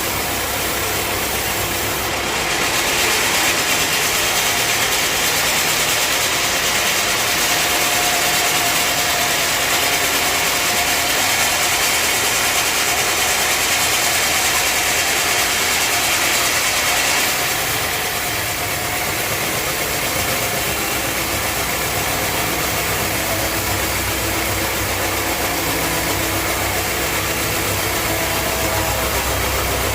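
Sawmill machinery running with a steady low engine hum. From about two seconds in until about seventeen seconds, a louder, high hissing noise rides over it as the saw cuts through a log, then drops back to the hum.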